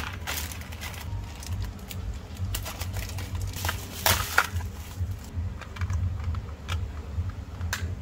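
Thin plastic packaging crinkling and crackling as a black plastic pouch is handled and cut open with small scissors, with scattered sharp clicks and snips, the loudest about four seconds in and another near the end. A steady low hum runs underneath.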